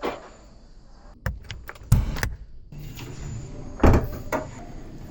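A series of about six sharp knocks and clunks, with the loudest about two seconds in and again near four seconds.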